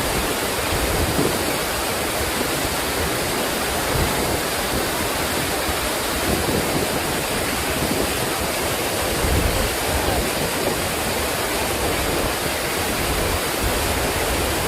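Waterfall crashing down: a loud, steady, dense rush of falling and splashing water.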